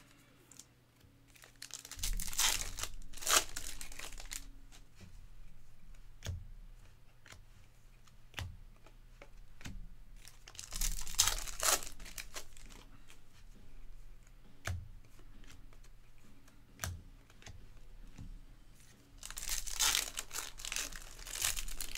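Foil wrappers of Bowman baseball hobby card packs being torn open and crinkled in three bursts: about two seconds in, around eleven seconds in, and near the end. Single light clicks come between the bursts as the cards are handled.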